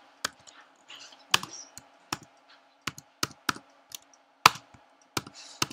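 Keys being typed one at a time on a computer keyboard: about a dozen sharp clicks at an uneven pace, over a faint steady hum.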